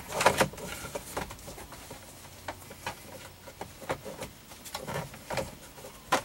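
Lower steering-column trim cover being worked off over the tilt lever: irregular clicks, knocks and rattles of hard plastic, the loudest just at the start.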